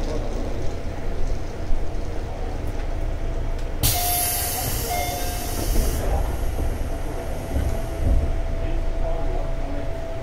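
Interior running sound of a JR 211 series 5000-number electric multiple unit: a steady low rumble from the wheels and running gear. About four seconds in, a loud hiss starts abruptly and cuts off about two seconds later, and a faint steady whine carries on from then.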